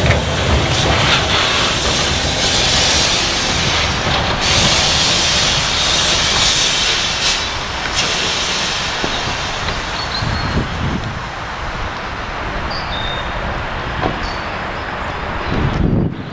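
Krupp-built fireless steam locomotive moving slowly past, with a loud hiss of exhaust steam over the rumble and clatter of its wheels and running gear on the rails. The hiss is strongest for the first half and weakens as the engine draws away.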